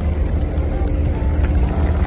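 Steady low rumble of a parked semi truck's diesel engine idling, with a faint steady hum above it.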